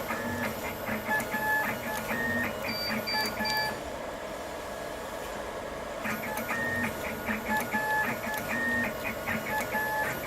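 YZ-C200 automatic wire cutting and stripping machine running its cycle, its stepper motors whining in short, repeating pitched bursts. Three short high beeps about three seconds in, then a pause of about two seconds with only a steady hum before the bursts start again.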